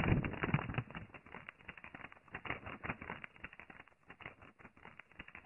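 Paper rustling and crinkling as a sheet is handled: dense, irregular crackles, loudest at first and thinning out after about a second.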